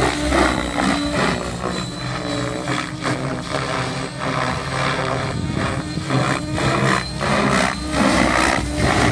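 Electric 700-size RC helicopter (Compass 7HV) flying aerobatics overhead: the main rotor chops and whooshes in quick pulses, and the motor and drivetrain whine rises and falls in pitch as the load changes.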